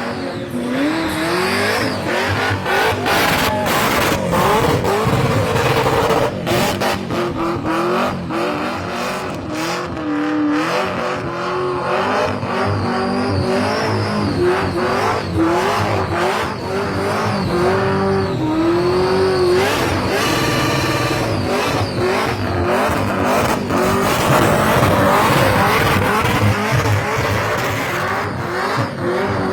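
Burnout car's engine held at high revs, its pitch rising and falling over and over, while the spinning rear tyres squeal, with many sharp cracks mixed in.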